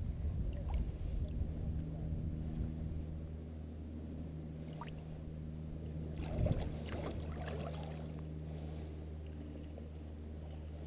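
Creek water lapping and swirling around a hand holding a steelhead by the tail in the current, over a steady low hum, with a short burst of splashing about six seconds in.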